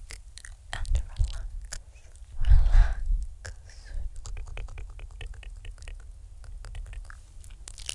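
Close-miked wet mouth sounds: tongue and lip clicks and smacks, with a quick run of small clicks a little past the middle and a louder breathy burst around three seconds in.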